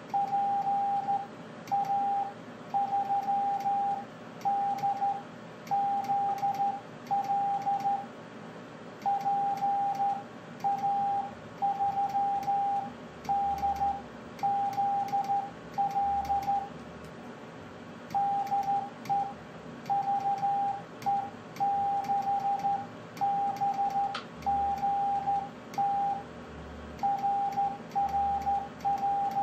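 Slow hand-sent Morse code (CW): a steady tone of about 800 Hz keyed on and off in dots and dashes, with faint clicks as the key works.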